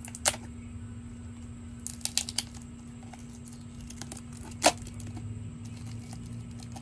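Folding knife blade snagging and crinkling against plastic wrap and tape around a plant's cup: a sharp crackle just after the start, a quick run of them about two seconds in, and the loudest about two-thirds of the way through. A steady low hum runs underneath.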